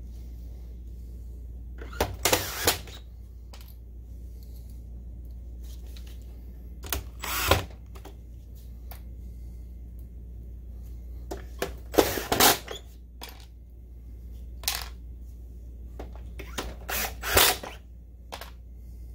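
Small metal screws and a cordless screwdriver being handled: about six short bursts of clicking and clatter, each under a second, over a steady low hum.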